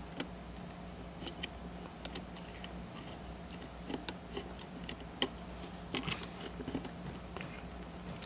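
Light, irregular clicks and taps of fingers fitting the small LCD wire-cable connectors inside a laptop's screen lid, over a steady low electrical hum.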